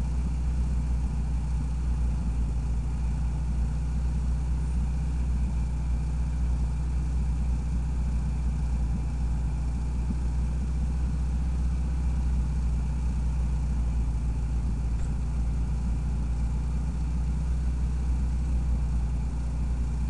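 VW 1600 cc air-cooled flat-four engine of a trike idling steadily, with a deep, even hum and no revving.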